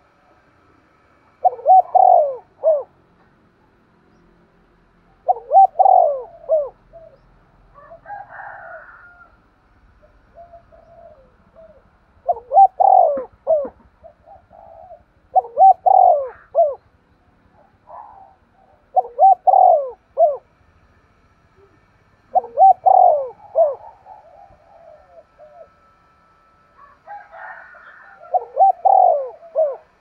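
A caged decoy spotted dove giving its urgent cooing call ("thúc gù"), used to lure wild doves: a short run of low coo notes repeated about seven times, every three or four seconds, with softer sounds between.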